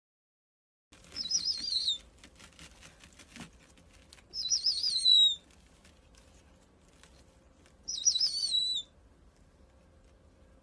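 Snowy owl giving three high-pitched, wavering whistled calls, each about a second long, a few seconds apart.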